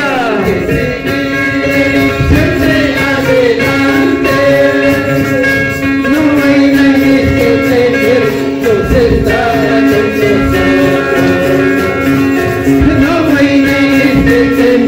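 Evangelical hymn sung by men's voices, accompanied by a strummed acoustic guitar and a hand drum, over a steady held note.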